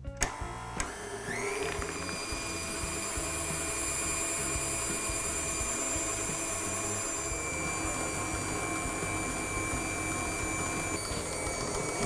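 KitchenAid stand mixer switched on about a second in, its motor winding up to high speed and then running steadily with a whine as the balloon whisk whips warm Swiss meringue.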